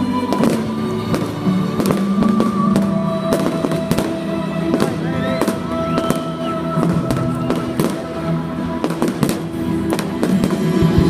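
Fireworks going off in irregular sharp bangs and crackles over loud music played along with the display, with a few short whistling glides near the middle.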